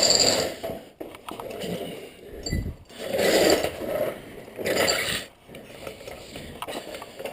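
Hand tools at work on a car's engine: a ratchet wrench clicking in a few short spells, with metallic clinks between.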